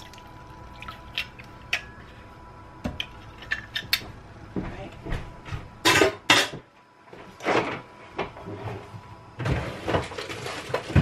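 Kitchen handling sounds: light clinks and taps of metal utensils and dishes, then a few louder clatters about six seconds in and a longer burst of clattering near the end.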